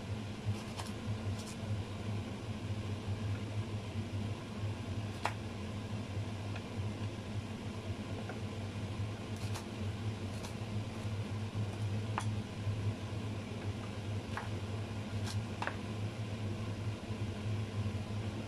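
A serrated knife cutting Brussels sprouts in half on a plastic cutting board, a dozen or so short, irregularly spaced clicks as the blade goes through and meets the board, over a steady fan-like hum.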